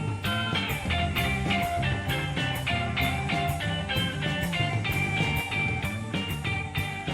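Background music: an instrumental rock track with guitar and drums on a steady beat.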